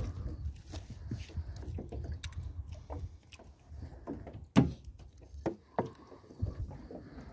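Scattered clicks and knocks of hands, fishing tackle and bodies against an aluminium boat, with one sharp knock about four and a half seconds in, over a choppy low rumble of wind on the microphone.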